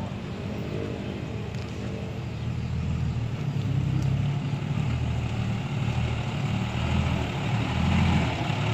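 Six-wheel dump truck's diesel engine running under load as the truck creeps forward with its bed tipped, spreading a load of soil. The engine grows louder about a third of the way in and is loudest near the end.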